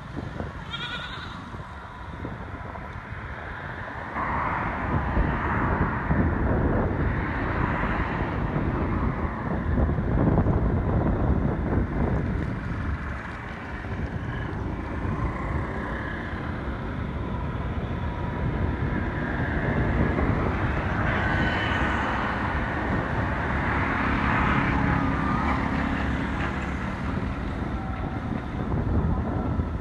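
Outdoor background rumble that swells and fades several times, heaviest in the low end.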